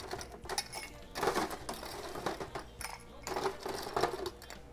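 Ice cubes being dropped by hand into a glass tumbler, clinking against the glass and each other in a string of irregular clinks.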